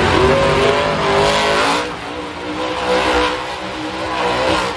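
Monster truck's supercharged V8 revving hard, its pitch sweeping sharply up at the start and then holding high and wavering.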